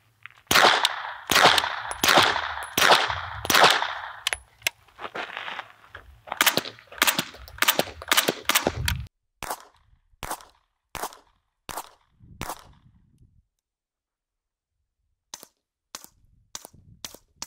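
Suppressed 9mm gunfire in strings of about five. First comes a B&T TP9 with a B&T suppressor firing five supersonic 115-grain rounds, each shot loud with a sharp supersonic crack and a long echo. Then come noticeably quieter, duller shots from an MP5SD on the same ammunition.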